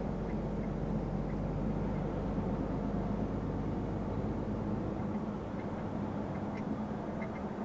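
Truck engine and road noise heard inside the cab while driving: a steady low drone with a constant hum, and a few faint light ticks.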